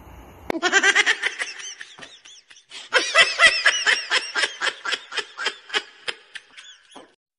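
High-pitched giggling laughter: a quick run of short notes in two bouts, the second longer and slowing as it fades away.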